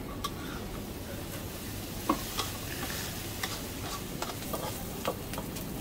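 Pad thai stir-frying in a wok: a steady sizzle broken by irregular sharp clinks and scrapes of a utensil against the pan, the loudest about two seconds in.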